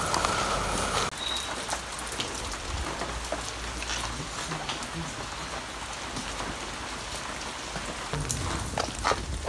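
Footsteps and brushing through undergrowth, with scattered crackling and rustling of leaf litter and twigs. Before that, a steady high tone cuts off abruptly about a second in.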